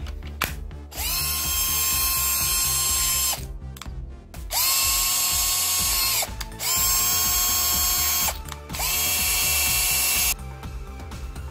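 Keyang DD-1442P 14.4 V cordless drill driver's motor test-run four times on its freshly rebuilt battery pack: each run spins up to a steady whine, holds for one to two seconds and winds down. A few clicks come before the first run.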